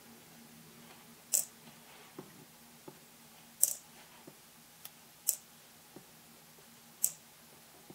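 Sharp snipping clicks, four loud ones spaced one and a half to two seconds apart with fainter ticks between, as handrail parts for a scale model ship are cut free with a hobby cutting tool.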